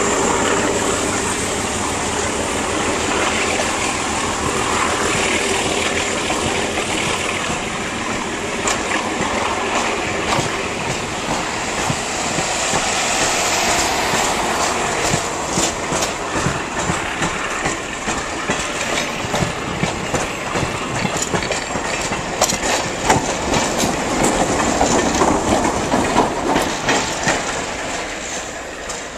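Passenger train cars rolling past on the track: a steady rumble of steel wheels on rail, with sharp clicks from about halfway through as the wheels cross rail joints. The sound dies away near the end as the train moves off.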